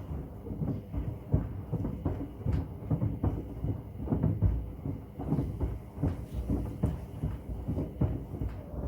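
Hoover washing machine turning a load of wood, the pieces thudding and knocking irregularly against the drum several times a second.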